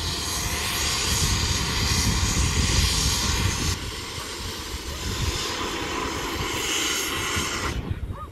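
SteamRanger's double-headed Rx class 224 and 620 class 621 steam locomotives getting under way: a loud, steady hiss of escaping steam over a low rumble. The hiss eases slightly a little under four seconds in and cuts off abruptly near the end.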